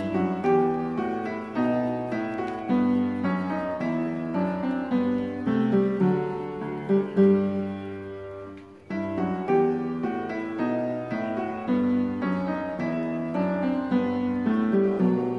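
Background instrumental music with a melody of clear notes, briefly fading out about nine seconds in and starting again.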